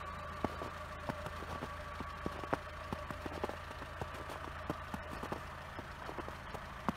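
A 2002 Fiat Punto 1.2 8-valve engine running at low revs as the car creeps off across packed snow, with irregular crunching clicks from its studded winter tyres over a steady hum.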